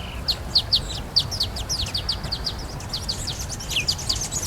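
Wild birds calling: a rapid, continuous run of short, high, downward-slurred chirps, several a second, over a low steady background rumble.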